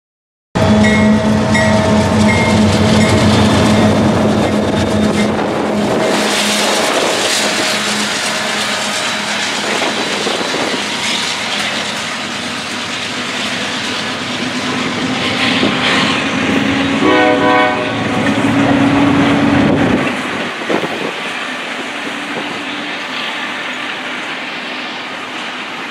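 A freight train passes close by: a CSX diesel locomotive goes by first, its engine adding a steady low hum, then double-stack intermodal well cars roll past with continuous rumbling and wheel clatter on the rails. About two-thirds of the way through, a ringing tone with several pitches at once sounds for about three seconds over the rumble.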